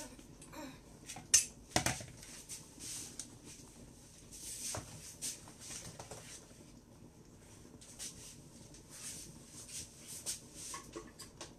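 Dishes and utensils being handled on a kitchen counter: two sharp knocks about a second and a half in, then soft irregular rustling and scraping.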